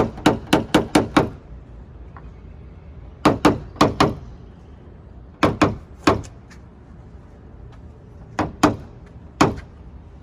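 Paintless dent repair tapping: quick, sharp taps on the car's sheet-metal body panel in bursts of three to six strikes, several a second, with pauses of a second or two between bursts.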